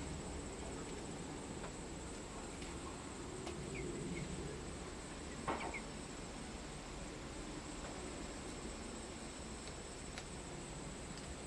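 A steady high-pitched insect trill runs over a low background hum. There are a few faint short chirps, and one sharp click about halfway through.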